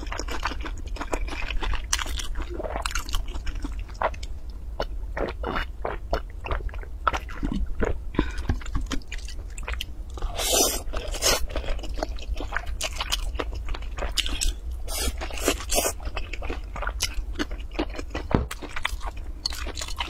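Close-miked eating of spicy flat noodles: wet chewing and mouth smacks, a noodle slurp about ten seconds in, and chopsticks clicking and scraping on the plate, over a steady low hum.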